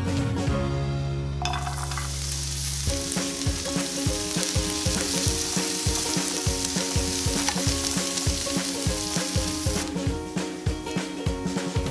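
Sliced carrots sizzling in hot oil in a nonstick frying pan while being stirred with a wooden spatula. The sizzle starts about a second and a half in and drops away near the end, over background music with a steady beat.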